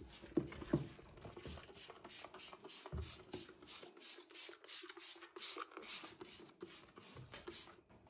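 Plastic squeeze bottle squeezed in quick succession to puff out white cleaning powder, a short hissing puff with each squeeze, about three a second, after a few handling knocks at the start.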